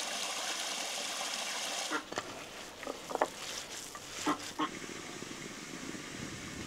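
A few short animal calls, spaced about a second apart, over a steady hiss that fades after about two seconds.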